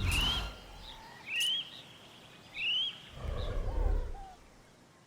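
A bird calling: three short rising chirps about a second and a quarter apart, over a low rumble at the start and again about three seconds in.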